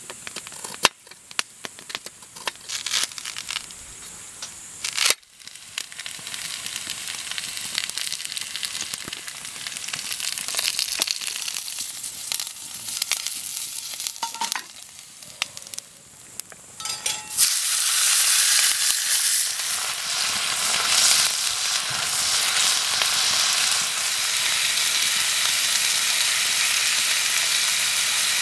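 Food frying in a pan, sizzling. A few sharp clicks and knocks come in the first five seconds, and the sizzle turns much louder about seventeen seconds in.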